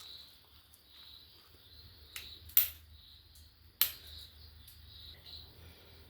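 Steady insect chirping, with three sharp clicks a little past the middle, the second and third much louder.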